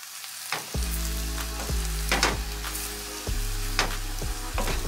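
Vegetables stir-frying in soy sauce, sesame oil and water in a frying pan, sizzling steadily as the liquid comes up to heat and starts to bubble, with a wooden spatula scraping through them several times. Background music plays underneath.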